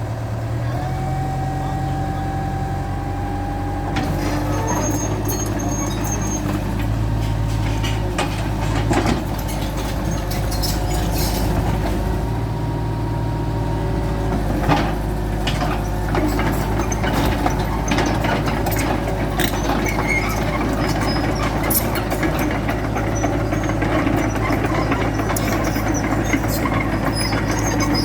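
Hitachi EX100-2 excavator's diesel engine working under load with a hydraulic whine, its note stepping up and down as the machine works, and scattered knocks and clanks throughout.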